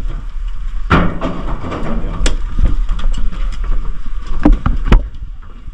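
Low rumble of wind and movement on a body-worn action camera's microphone, with four sharp clacks: one about a second in, one past two seconds, and two close together past four seconds.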